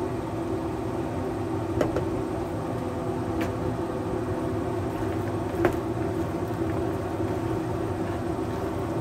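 A steady mechanical hum with several fixed tones, broken by three sharp clicks a second or two apart.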